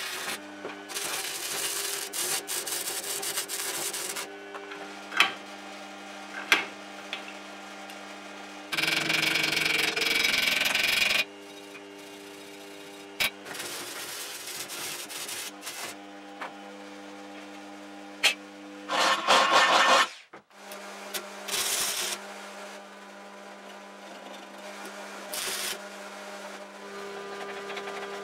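Electric arc welding on steel angle iron: several separate stretches of crackling, sizzling arc noise, the loudest about nine to eleven seconds in, over a steady low hum, with a few sharp clicks between them.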